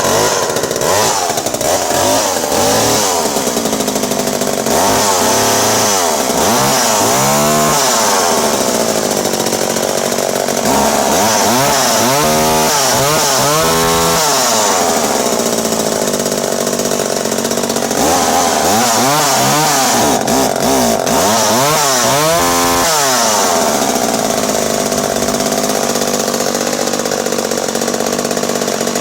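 Vintage McCulloch MAC 130 top-handle chainsaw's two-stroke engine running loud, revved up and down in several quick clusters with steadier idle-like stretches between them.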